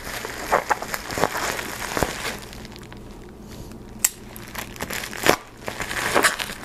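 Packaging being handled and unwrapped by hand, crinkling and crackling in irregular bursts with a few sharper clicks, as a boxed battery is unpacked.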